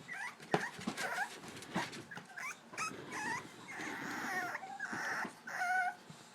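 Several English Bulldog puppies whining and yipping over one another, short high-pitched cries that bend up and down, with scratching and knocks as they push at the edge of their pen.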